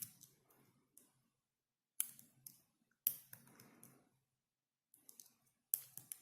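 Dimple lock pick and tension tool clicking and scraping in the keyway of an ISEO R6 dimple cylinder: short clusters of metallic clicks every second or so, with brief gaps, as the pins are probed and set.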